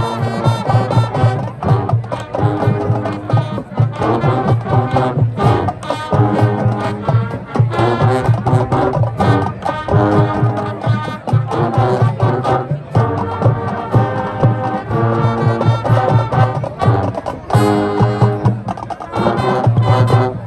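High school marching band playing: a brass melody over marching drums keeping a steady beat.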